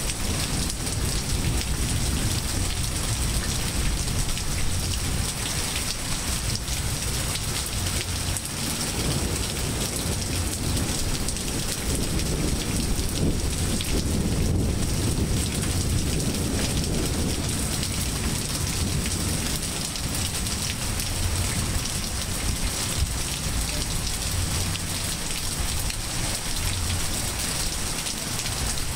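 Steady rain falling on trees, grass and pavement, an even hiss, with a low rumble of thunder swelling about halfway through.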